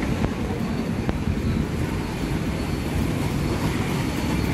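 Diesel engine of a passenger bus running steadily as the bus drives off across the stand: a constant low engine sound.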